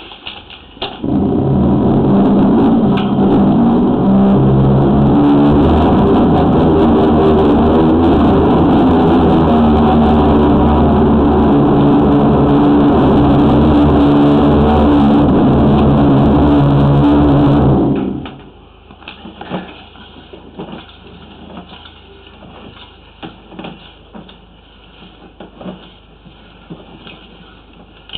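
High-pressure sewer drain jetter running at full pressure, driving a water-jet root cutter to cut tree roots out of a pipe joint: a loud, steady pump drone with rushing water. It starts about a second in and shuts off suddenly about 18 seconds in, leaving faint scattered knocks.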